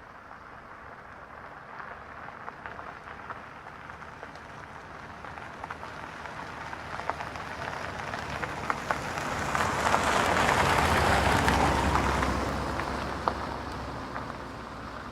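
A car driving past on a gravel road: tyre crunch and pinging stones grow louder as it approaches, and the engine's low hum comes through as it passes about ten to twelve seconds in before it fades away.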